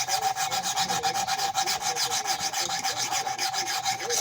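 Metal file rasping rust off a cast iron tea kettle in rapid, even strokes, about six a second, with the cast iron giving off a steady ring. It stops abruptly at the end.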